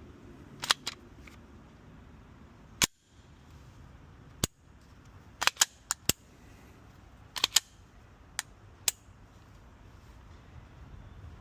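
Pistol shots fired at an irregular pace, about a dozen sharp cracks, some in quick pairs.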